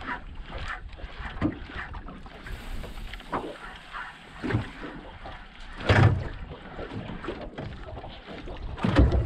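Small waves lapping and splashing with wind buffeting the microphone, with two dull low knocks, about six seconds in and near the end.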